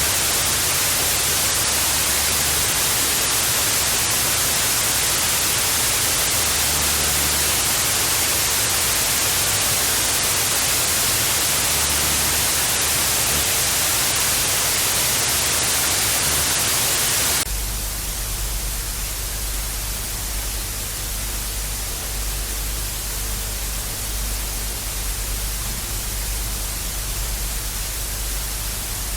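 Analog TV static hiss, steady and loud. A little over halfway through it switches abruptly to a duller, slightly quieter static with a low hum underneath.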